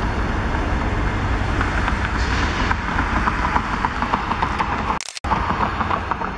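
Norfolk Southern diesel-electric locomotives running: a steady low rumble with rapid clicking as the consist moves past, and a brief dropout in the sound about five seconds in.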